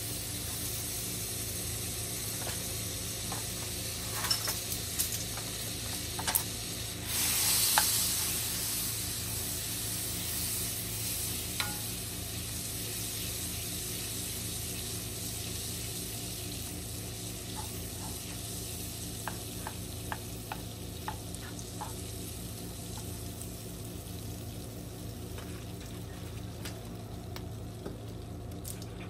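A stick of butter melting and sizzling in a nonstick frying pan, stirred and pushed around by a wooden spatula that taps lightly against the pan a few times. The sizzle swells briefly about seven seconds in, over a steady low hum.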